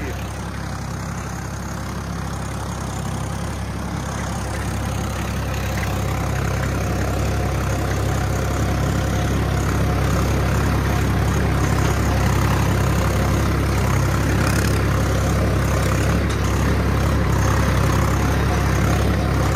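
Swaraj 855 4x4 tractor's diesel engine running steadily under load while pulling an 11-tine cultivator through the soil in four-wheel drive; the sound slowly grows louder.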